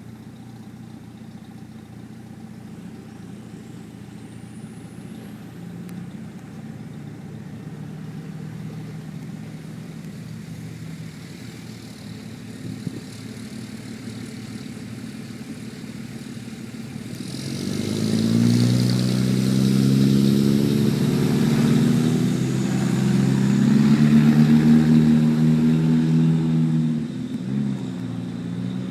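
A vehicle engine running steadily at a low speed, then revving up about halfway through and running louder at a higher speed for about ten seconds before dropping back near the end.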